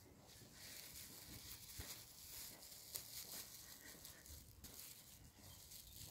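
Near silence: faint outdoor hiss with a few soft ticks.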